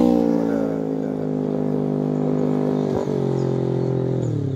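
Vehicle engine idling steadily, its pitch sinking slowly and stepping down slightly twice. Faint high chirps sound near the end.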